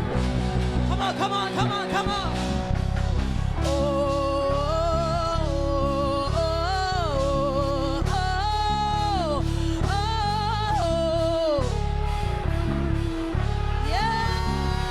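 Live worship music: a singer holds long notes with vibrato and sings gliding runs over a band's sustained low accompaniment.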